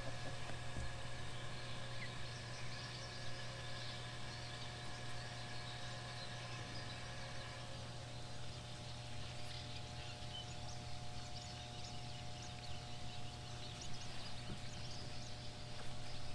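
Outdoor ambience of a steady low machine hum with a few faint steady tones above it, some of which stop about halfway through, over scattered faint bird chirps.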